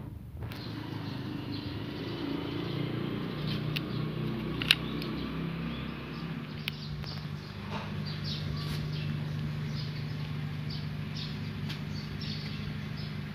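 A steady low hum, with small birds chirping repeatedly from about seven seconds in and a few faint clicks.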